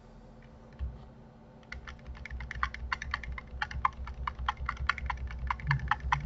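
Computer keyboard keys tapped in a rapid run of short clicks, about six to eight a second, beginning about a second and a half in. A single dull thump comes just under a second in.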